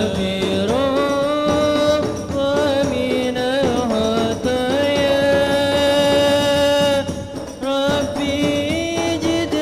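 A lead singer chanting an Islamic devotional song through a microphone and PA, in long held notes that slide between pitches, with the group's frame drums and marawis drums behind.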